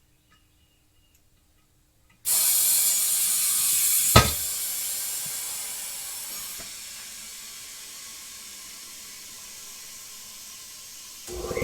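Compressed air hissing loudly through a locking air chuck into a freshly mounted tyre, starting suddenly about two seconds in. About two seconds later comes one sharp bang, typical of the tyre bead popping onto the rim seat, and the hiss then eases off gradually as the tyre fills. A motor starts running just at the end.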